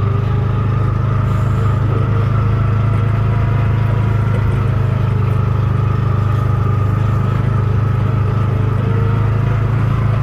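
A vehicle engine running steadily at an even speed, with no change in pitch or level.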